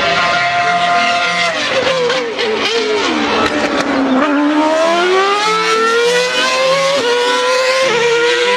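Formula One race car engine at high revs. Its high-pitched note holds, drops over a couple of seconds, then climbs steadily again.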